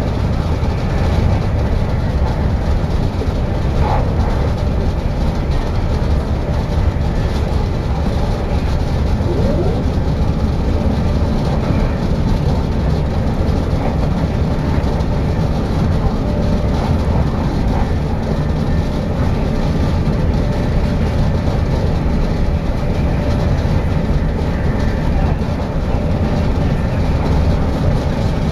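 Steady low rumble of a moving passenger train heard from inside the carriage by the doors: wheels running on the rails and the coach's running noise.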